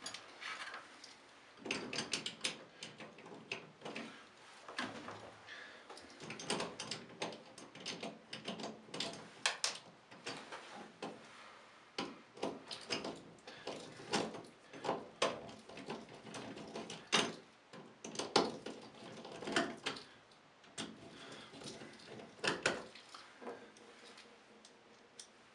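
Irregular clicks, taps and rattles of plastic shower-control parts being handled and pushed back onto an Aqualisa thermostatic mixer valve.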